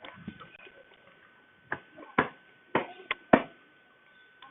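Chewing crunchy Takis rolled tortilla chips: about five sharp crunches close to the microphone in the second half.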